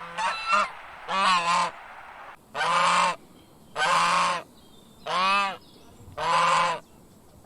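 A goose honking repeatedly: a series of about six loud honks, each about half a second long, roughly one a second.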